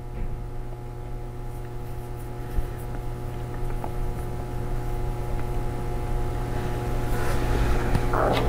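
Steady low electrical hum with a few thin steady tones above it and occasional faint clicks: workshop room tone.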